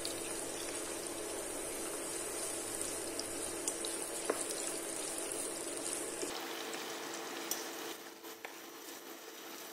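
Sliced onions, garlic, green chilies and curry leaves sizzling steadily in hot oil as they are stirred with a wooden spoon, with a few light clicks. The sizzle changes and drops a little past the middle.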